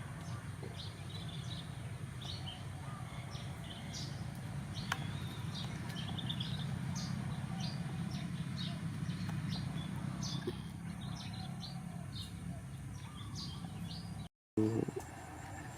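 Small birds chirping in short, repeated calls over a low, steady rumble of background noise. The sound drops out briefly near the end.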